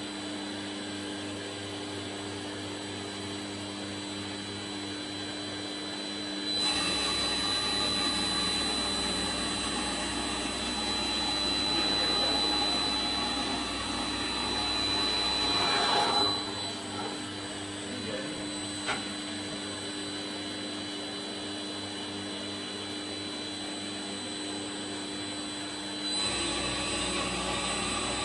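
Routech Oikos CNC timber-beam machining centre running, a steady machine whir and whine. The noise grows louder and rougher from about six seconds to sixteen seconds and again near the end as the tool mills a slot into the wooden beam.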